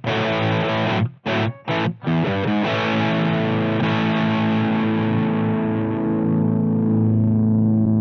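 Electric guitar through a Twinote Boogie Distortion pedal with high-gain distortion: a few short, choppy chords that stop dead, then about two seconds in a chord left ringing out and slowly fading.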